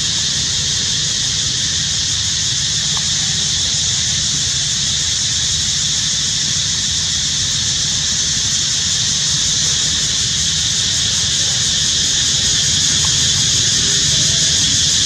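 A steady high hiss with a low rumble beneath it, an even outdoor background that does not change; a few faint short squeaks near the end.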